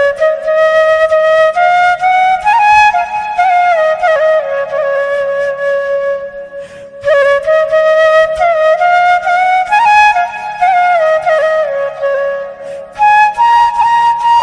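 Background instrumental music: a single melody line played in long flowing phrases, with short breaks about seven and thirteen seconds in.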